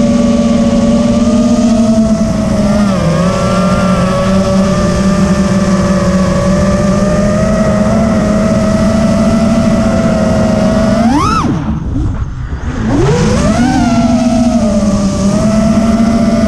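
FPV quadcopter's electric motors and propellers running at a steady buzzing pitch that dips briefly about three seconds in. About eleven seconds in the pitch surges sharply upward, then drops away almost to nothing as the throttle is chopped, and climbs back. It starts rising again at the very end.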